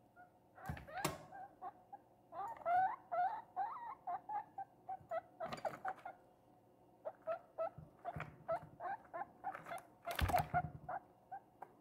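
Guinea pig squeaking in strings of short, quick calls, with a wavering run of squeaks a couple of seconds in. Three louder knocks and rustles come from it moving about the wire cage, the loudest near the end.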